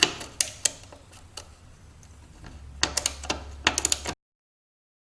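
Metal clicks and clinks of a hand tool working stainless steel nuts loose, with a quick run of clicks near the end; the sound cuts off suddenly about four seconds in.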